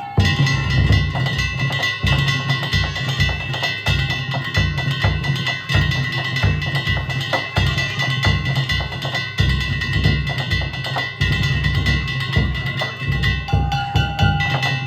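Danjiri festival music: a big taiko drum beating fast and hard, with metal hand gongs (kane) ringing without pause over it.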